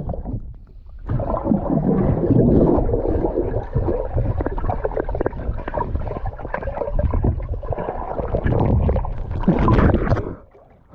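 Pool water heard through a submerged action camera: muffled rumbling and gurgling as a swimmer moves about underwater, with a splash near the end as the camera breaks the surface.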